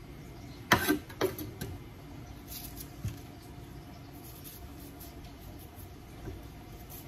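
A kitchen knife cutting winter squash on a wooden cutting board: a few sharp knocks of the knife and squash against the board, the loudest just under a second in, then quieter scraping as the squash is cut and peeled.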